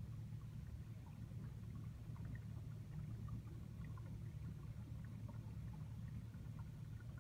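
Steady low hum of aquarium equipment such as a pump or powerhead, with faint scattered ticks over it.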